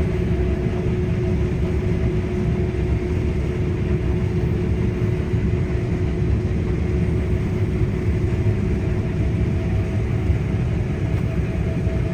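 Case IH Axial-Flow 9250 combine harvester running steadily while harvesting wheat: a constant low machinery rumble with a steady hum over it.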